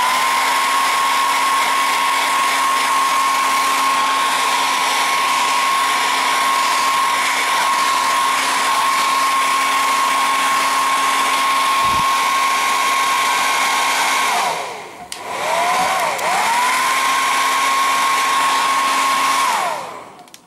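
Handheld hair dryer blowing steadily with a high motor whine. It is switched off about two-thirds of the way through, switched back on and spins up again with a rising whine, then switched off again shortly before the end.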